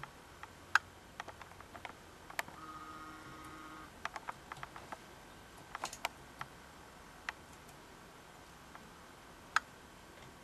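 Laptop keyboard being typed on slowly, one key at a time: sparse, irregular faint clicks. A short faint steady tone lasts about a second, about two and a half seconds in.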